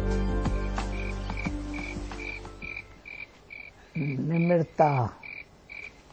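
Soft background music of sustained chords and plucked notes fades away over the first three seconds. It leaves a high chirp repeating evenly, about two and a half times a second, like night-time chirping ambience. A woman's voice speaks briefly near the end.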